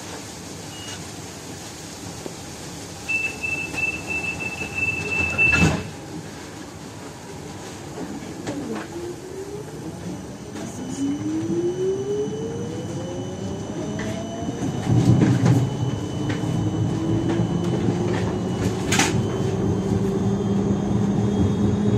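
Siemens Combino Plus tram moving off from a stop. A door warning tone sounds for a couple of seconds and ends in a sharp knock as the doors shut. Then the traction motors set up a whine that rises in pitch while the running rumble grows, with another sharp click near the end.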